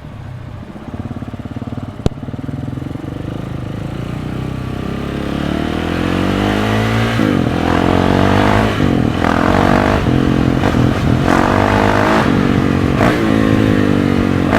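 KTM 690 SMC supermoto's single-cylinder engine through an Akrapovic exhaust, running low and then pulling away hard. Its note climbs and drops sharply several times as it shifts up through the gears, with a sharp click about two seconds in.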